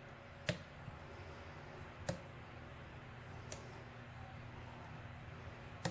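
Four faint, sharp clicks about a second and a half apart as a lock pick works the pins of a padlock against tension from a tension wrench, over a low steady hum.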